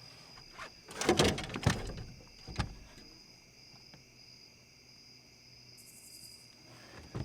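Night insects chirring steadily at a high pitch, with a short clatter of knocks and rattles about a second in and one more knock a little later.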